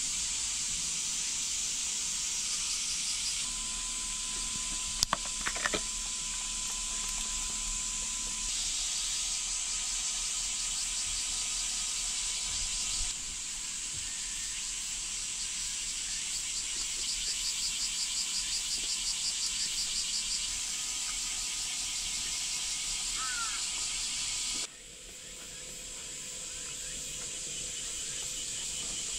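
Steady, high-pitched chorus of insects, with a pulsing insect call joining for a few seconds in the second half. A few light clicks come about five seconds in.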